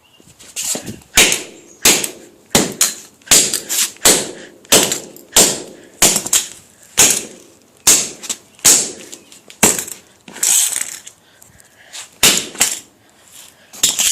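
Hammer repeatedly striking a Master combination padlock lying on the ground: about twenty sharp metal-on-metal blows, one or two a second, each with a short ring, with a brief pause about eleven seconds in.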